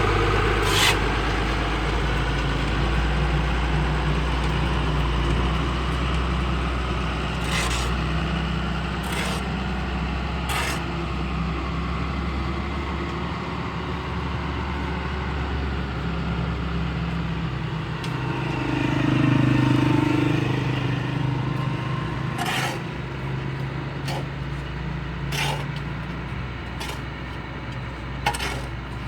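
An engine or motor running steadily with a low hum that swells briefly past the middle, with scattered sharp clicks and knocks.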